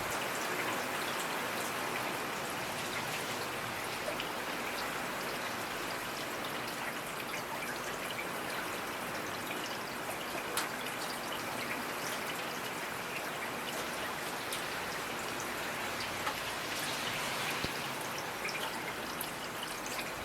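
Steady rainfall, an even hiss with scattered individual drops ticking on a surface.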